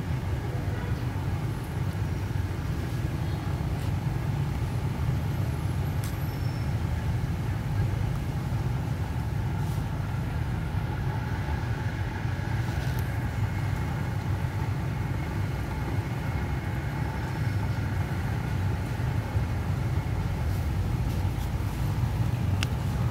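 Steady low background rumble without breaks.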